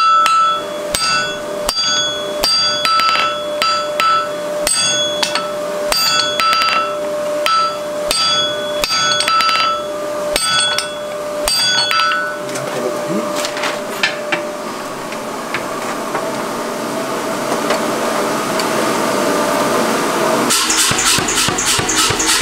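Hand-hammer blows on a red-hot wrought-iron bar laid on the anvil, cutting it off, struck about every half-second with each blow ringing; after about twelve seconds the hammering stops and background music comes in near the end.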